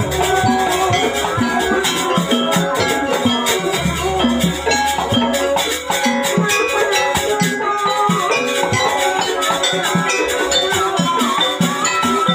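Live jaranan music: a Javanese percussion ensemble of drums and tuned metal percussion playing a busy, even rhythm. A deep low tone sounds at the start and again about four seconds in, and a wavering melody line comes in near the end.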